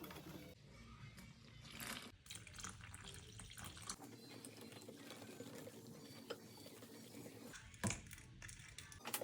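Faint liquid splashing and pouring during kitchen food preparation, with a light knock about two seconds in and a sharper one near the end.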